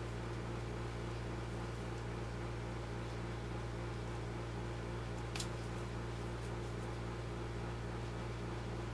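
A steady mechanical hum with a hiss over it, and one sharp click about five seconds in.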